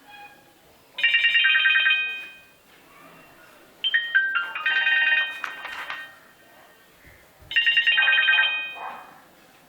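Nokia C1-00 ringtone playing from the phone's speaker: three short, bright melodic phrases about three seconds apart, with pauses between them.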